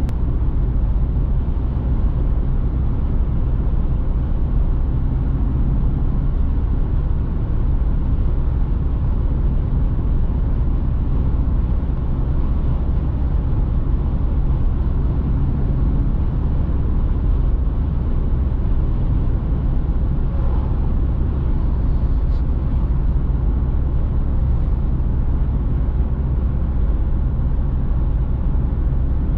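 Citroen C3 Picasso's 1.6 HDi four-cylinder diesel droning steadily at cruising speed, heard from inside the cabin, under a constant rumble of tyre and wind noise.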